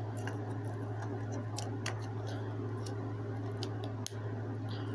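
A steady low hum with a few faint, short clicks of small plastic packaging being handled; the sharpest click comes about four seconds in.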